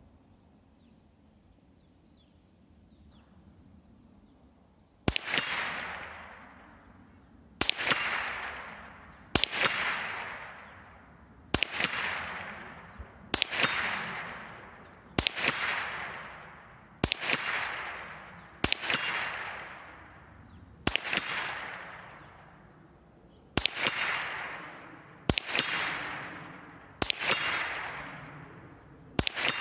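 A Marlin 39A lever-action .22 rifle firing CCI Blazer .22 LR, about thirteen shots roughly every two seconds starting about five seconds in. Each crack is followed by the clang and ring of a steel rock chuck target being hit.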